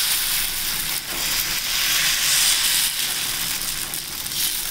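Nine-grain dosa batter sizzling in oil on a hot cast-iron dosa pan as a steel ladle spreads it in circles; a steady hiss.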